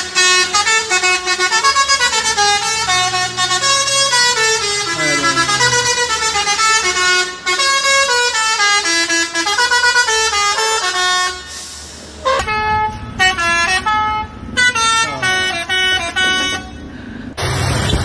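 Lorry 'telolet' basuri musical air horn playing a stepping multi-note tune for about twelve seconds. After a cut, shorter, choppy horn notes follow.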